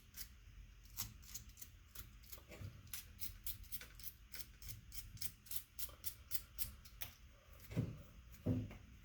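Small piece of sandpaper rubbed in quick, repeated strokes over the bare end of a heavy copper welding cable, scuffing off oxidation so the solder will bond. Two dull knocks near the end.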